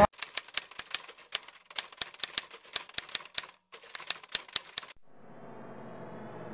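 Typewriter sound effect: rapid, irregular keystroke clicks for about five seconds with one brief pause. A low droning swell then starts and grows louder toward the end.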